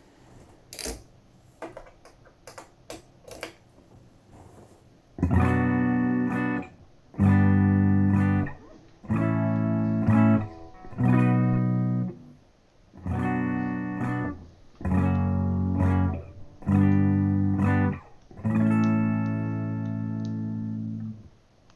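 Electric guitar played through the clean channel of the original (MK1) Boss Katana Artist amp: a few faint clicks first, then about eight strummed chords, each ringing a second or two before being cut off, the last held longest.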